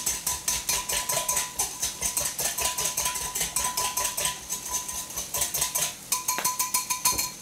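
Wire whisk beating a vinaigrette in a glass mixing bowl, the wires clicking rapidly and rhythmically against the glass, several strokes a second.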